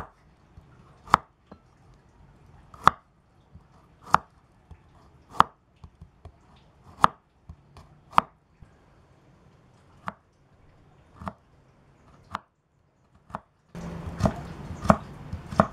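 Large kitchen knife slicing carrot on a wooden cutting board: a sharp knock of the blade on the board a little more than once a second. Near the end the chops come quicker over a louder low background.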